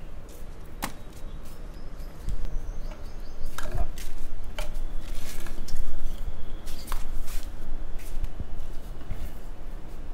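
Plastic pipe and fittings being handled and pushed together: scattered irregular clicks and knocks, with a low rumble of wind on the microphone.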